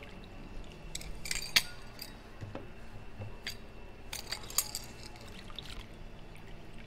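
Lime halves squeezed in a metal hand citrus press over a metal jigger: juice trickling into the jigger, with light metal clicks and clinks as the press is worked open and shut.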